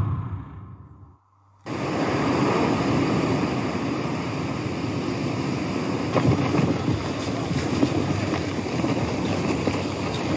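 The preceding audio fades out to a brief silence, and about a second and a half in a steady rushing noise sets in, with faint crackles here and there.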